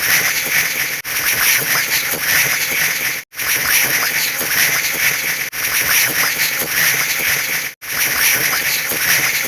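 A dense, buzzing mix of many overlapping sound effects, broken by brief dropouts roughly every two seconds.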